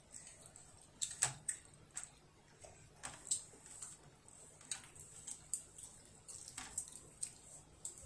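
Chopsticks clicking and tapping against each other and a plate as a child picks up food, light irregular clicks a couple of times a second.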